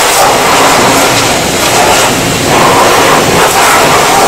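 Steam jenny pressure-washer wand spraying a jet of hot water against a bus's front axle and chassis: a loud, steady hiss and spatter that wavers slightly as the jet moves over the metal.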